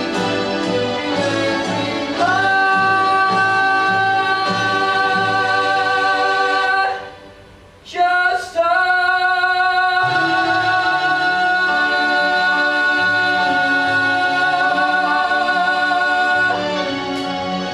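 A male voice singing a musical-theatre song to upright piano accompaniment. He holds a long note for about four seconds, breaks off briefly, then holds a second note with vibrato for about eight seconds.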